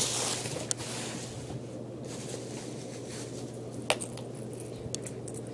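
Plastic bubble wrap rustling and crinkling briefly at the start, then quieter handling with a steady low hum underneath and a single sharp click about four seconds in.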